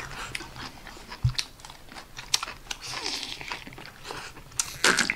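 Close-up eating sounds: chewing mouthfuls of rice and braised hairtail, with short clicks of wooden chopsticks against the plate. A louder noisy sound comes shortly before the end.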